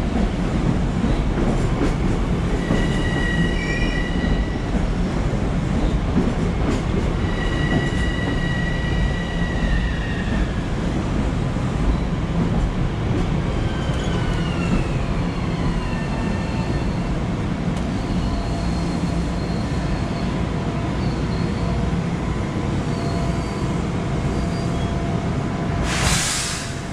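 Long Island Rail Road electric multiple-unit train rolling in and braking to a stop, wheels rumbling under high-pitched brake and wheel squeal that comes and goes and glides down in pitch around the middle. A short hiss near the end as it halts.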